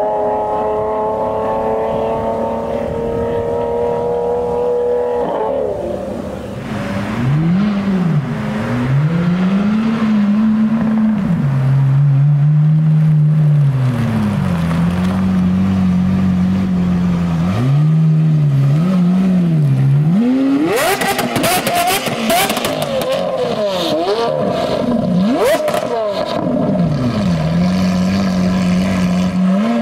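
Lamborghini Aventador V12 engines: one car pulls away with a slowly rising engine note, then another moves off at low speed, its revs swinging up and down with repeated blips. About two-thirds of the way in comes a loud spell of hard revving with crackling from the exhaust.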